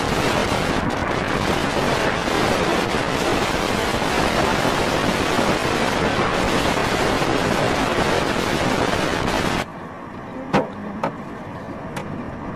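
Strong wind rushing over the microphone, a loud steady roar that cuts off abruptly near the end, leaving a quieter background with a few sharp clicks.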